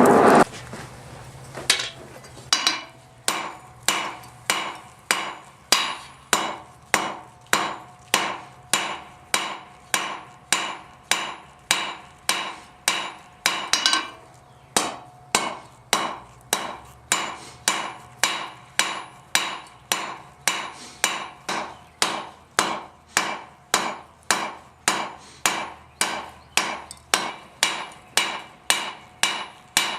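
Hand hammer striking steel on an anvil at a steady pace of about two blows a second, each blow ringing, with a short break about fourteen seconds in. A loud rush of noise cuts off in the first half second, before the hammering starts.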